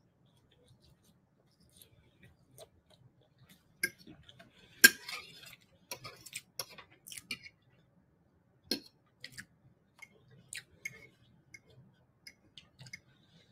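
Metal fork clinking and scraping on a plate while ramen noodles are twirled and scooped up: scattered sharp clicks, the loudest about five seconds in.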